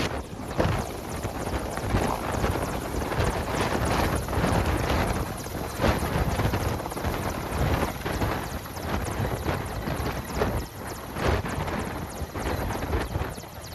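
Helicopter running, its rotor blades beating in a fast, steady chop.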